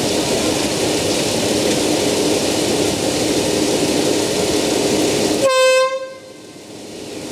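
Myanmar Railways DF1200-class diesel locomotive running at a standstill, then one short horn toot about five and a half seconds in, just before it departs. After the toot the overall sound drops sharply for a moment.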